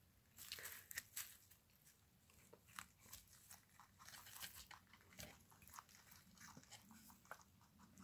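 Faint crunching of rabbits biting and chewing fresh cucumber slices, heard as a quick, irregular string of small, crisp clicks.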